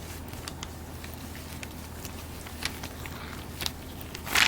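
Faint scattered clicks and handling noises over a steady low hum, with one louder short brushing noise near the end.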